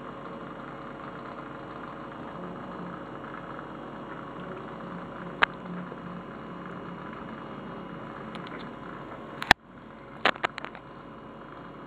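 Steady hum and hiss of running aquarium equipment, broken by a few sharp clicks: one near the middle, the loudest about three-quarters through, then a quick run of several more just after.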